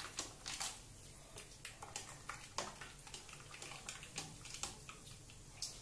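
Metal spoon stirring ice cubes in a glass of fizzing soda: faint, irregular clinks and ticks over a soft watery swirl.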